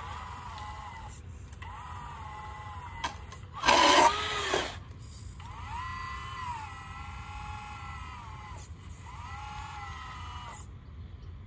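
Electric motor whine from a 1:14-scale RC Caterpillar 988 wheel loader, coming in several spells of a second or more. Its pitch dips as the motor takes load and recovers. A short, louder and rougher burst comes about four seconds in.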